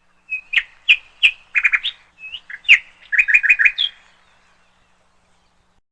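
A bird chirping: a quick run of sharp chirps and short trills that ends about four seconds in.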